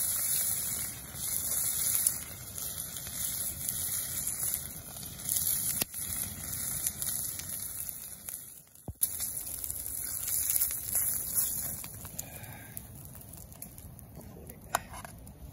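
A piece of meat sizzling in a frying pan over a crackling wood campfire, a steady hiss with occasional sharp pops. The sizzle dies down in the last few seconds, with a couple of light clicks near the end.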